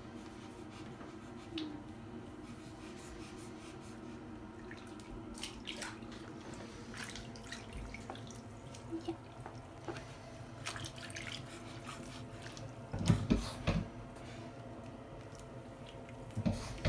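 Bath water in an inflatable baby bath dripping and lapping as a baby is washed, with a few louder splashes about thirteen seconds in and again near the end. A faint steady hum runs underneath.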